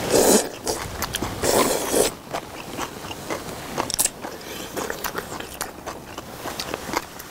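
People eating noodles with chopsticks: two loud slurps, one right at the start and another about a second and a half in, followed by quieter chewing and small clicks.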